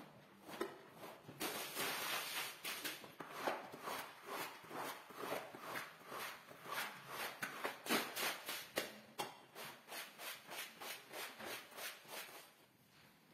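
A floor squeegee dragged in quick repeated strokes over a soaked, foamy rug, about two to three scrapes a second, wiping the water and suds off. The strokes stop near the end.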